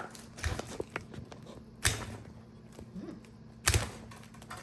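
Three sharp knocks, about half a second in, near two seconds and near four seconds, with lighter clicks between: hard parts being handled and tapped while fitting a car's shift lever.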